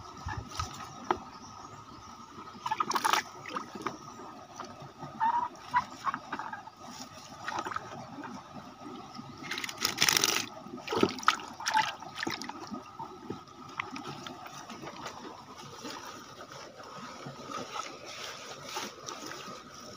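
Water splashing and sloshing in a bucket as a hand rummages among leaves and caught fish, in irregular short splashes, the loudest about halfway through.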